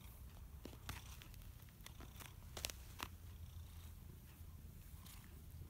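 Domestic cat purring steadily, a low continuous rumble, with a few brief clicks and rustles, the loudest about two and a half seconds in.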